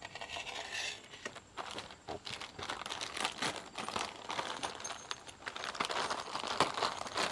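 Vacuum-sealed plastic packaging crinkling and crackling in irregular bursts as hands press and shift it.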